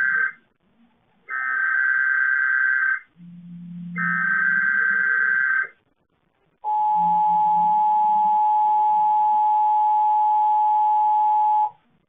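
Emergency Alert System test broadcast over AM radio. The end of one SAME header data burst is followed by two more harsh, screeching digital data bursts, each under two seconds and about a second apart. Then comes the steady two-tone EAS attention signal (853 and 960 Hz), held for about five seconds before it cuts off abruptly near the end.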